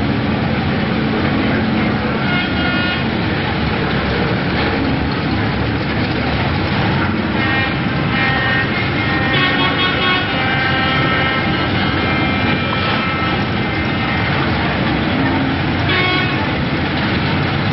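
A pack of BriSCA F1 stock cars racing, their engines making a loud, continuous noise. Several steady pitched tones sound over it briefly near the start, through the middle, and again near the end.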